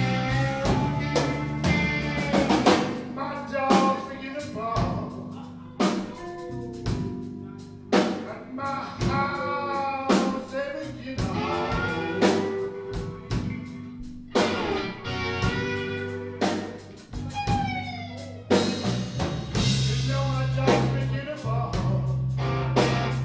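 Live blues band playing a slow blues on electric guitar, electric bass and drum kit, with a lead line of pitch-bending notes over the top, from a harmonica played into the vocal mic.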